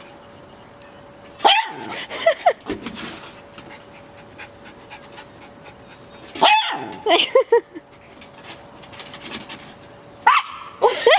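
Dog barking at a feather in three short bouts, about four seconds apart.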